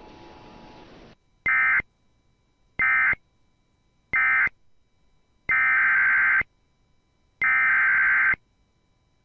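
Emergency Alert System SAME data bursts, a harsh digital warble. Three short bursts, the end-of-message code closing the tornado warning, are followed about a second later by two longer bursts of about a second each, the encoded header of the next alert.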